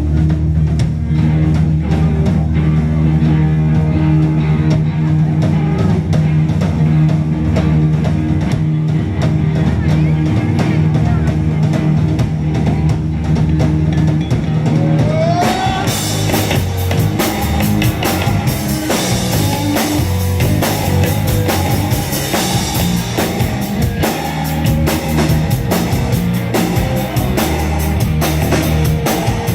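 Rock band playing an instrumental passage on electric guitar, bass and drum kit. About halfway through, the cymbals and full drums come in and the music gets denser.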